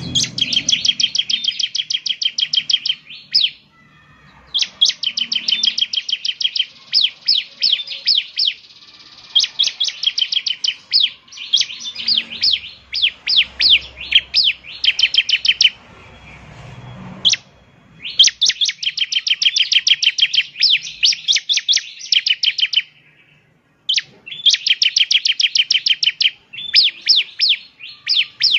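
Bar-winged prinia (ciblek) singing: rapid strings of sharp, high chirps, several a second, in bursts of two to four seconds with brief pauses between them.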